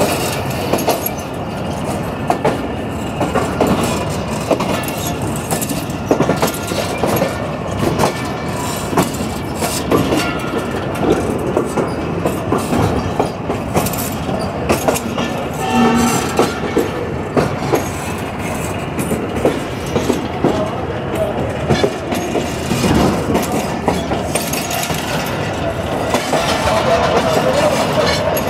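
Passenger train coach running on the rails, its wheels clattering over rail joints and points in an irregular run of clicks over a steady rumble, heard through the coach's open doorway. A short pitched tone sounds about halfway through.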